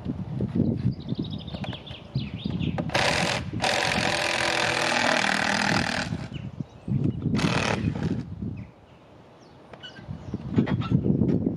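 Power drill running in bursts, a short one about 3 s in, a longer one to about 6 s and a brief one near 7.5 s, backing screws out of plywood formwork, with knocking and scraping of the boards being handled around it.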